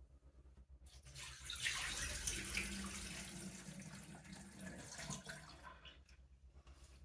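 Water poured into a sink basin and running down the drain, starting about a second in, loudest early and tapering off after about five seconds: a leak test on a newly fitted P-trap.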